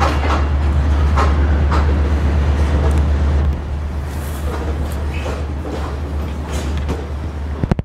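Train of new CAF metro cars, hauled on delivery, rolling slowly past on railway track: a steady low hum with irregular wheel clicks and rail noise, easing a little about three and a half seconds in.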